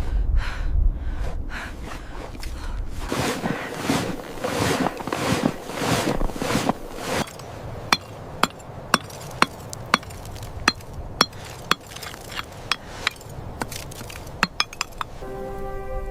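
Repeated scraping strokes, followed by a run of sharp, light clinking taps of hard objects, about one or two a second. Soft sustained music tones come in near the end.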